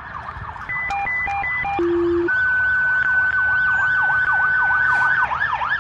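Fire dispatch alert tones over a radio: a few quick alternating beeps, a short low tone, then one long steady high tone of about three seconds. These announce the call that follows. Under them an emergency-vehicle siren yelps up and down about three times a second.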